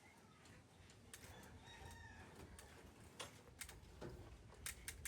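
Near quiet with faint bird calls in the background and a few sharp, light clicks or taps, most of them in the second half.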